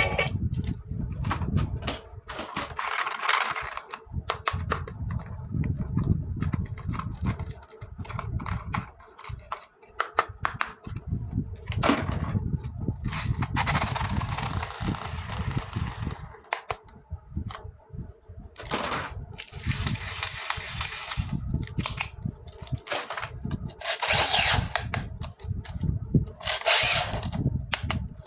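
Hands unboxing plastic toys: packaging crinkling in several stretches, with many clicks and knocks of plastic parts being handled and set down.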